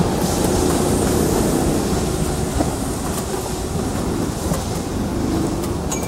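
EF81 electric locomotive propelling a rake of 24-series sleeper coaches slowly along the track: a steady rumble of steel wheels on the rails that eases off slightly as the train moves away.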